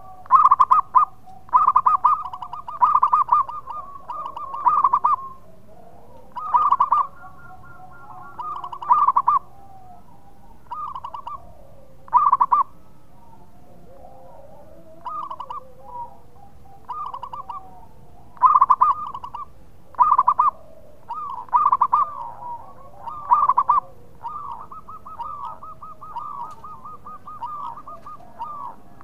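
Zebra dove cooing loudly: a series of short, rapidly pulsed trilling coos at one steady pitch, coming in groups with pauses. Near the end it gives one long, drawn-out trill.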